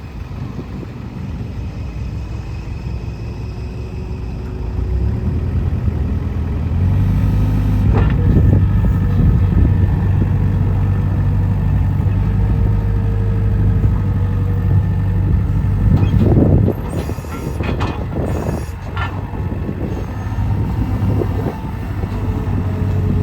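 New Holland L565 skid steer's diesel engine running steadily, coming up in engine speed a few seconds in, with a few sharp metallic clanks from the machine about a third of the way through and again later.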